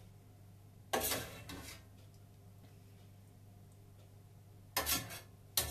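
A sauce spoon scraping and knocking against a frying pan as sauce is spooned onto a plate of swordfish: one short clatter about a second in, then two more close together near the end.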